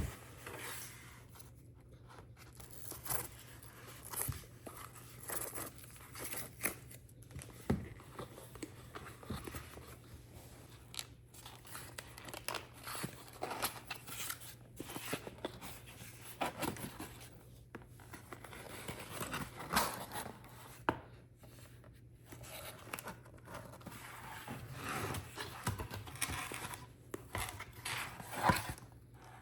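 Packaging being opened by hand: irregular tearing, crinkling and scraping of paper and plastic wrap, with scattered small clicks and taps.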